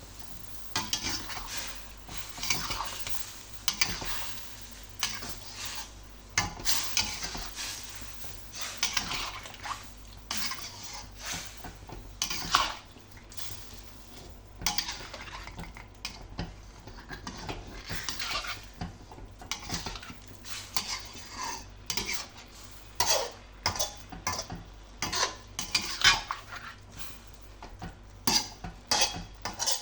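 A spatula stirring and scraping food around a pan in a long run of irregular strokes, with clinks of utensil on pan and some sizzling underneath.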